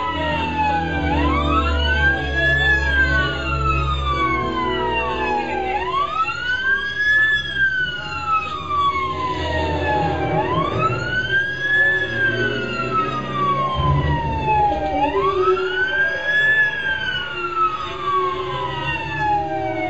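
Emergency vehicle siren in a slow wail: each cycle rises quickly and then falls slowly, repeating about every four and a half seconds. A second siren wails across it during the first several seconds, over a low rumble.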